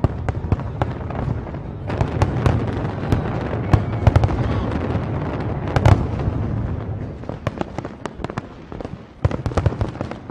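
Fireworks bursting in a dense barrage: rapid cracks and bangs over a continuous low rumble. The bursts thin out into scattered separate bangs about seven seconds in.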